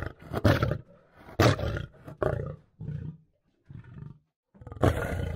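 Lion roaring: a bout of about six short, deep roars in a row, with a longer one near the end.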